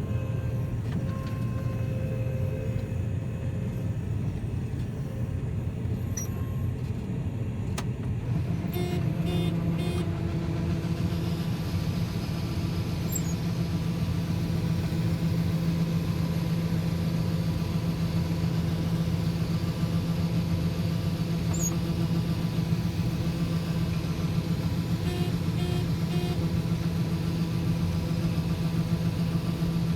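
Engine of a large farm machine running steadily, with a deeper hum settling in about nine seconds in. Short runs of electronic beeps sound at about the same moment and again later.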